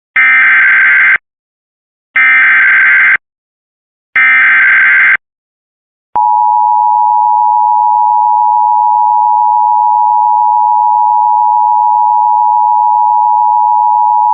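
Emergency Alert System header: three one-second bursts of warbling digital data tones, one second apart, followed by a long steady attention tone lasting about eight seconds, marking the start of a new warning broadcast.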